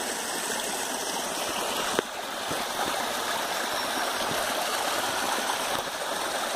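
A small forest stream running steadily, with one sharp click about two seconds in.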